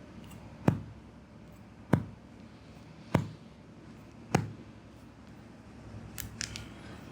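Four sharp percussive hand strikes on the body in a back massage, evenly spaced about a second apart, each with a short thud. A few faint small clicks follow near the end.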